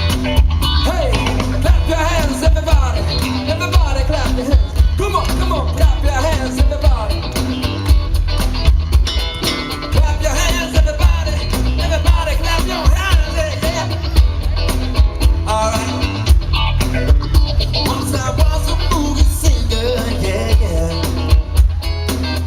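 Live band playing loud amplified music through a PA: a singer over bass guitar, electric guitar and drums with a steady beat.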